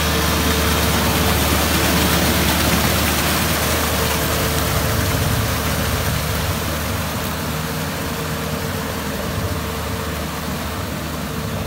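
Tractor engine running steadily as it drags a rear tillage implement through a flooded rice paddy, with a steady rushing noise over it. The sound eases slightly in the second half.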